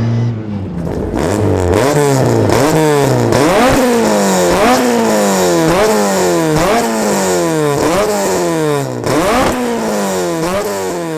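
Ford Mk2 Escort van's swapped-in ST170 four-cylinder on throttle bodies, revved hard in repeated blips about once a second. Each rev climbs quickly and falls away before the next, about ten in all.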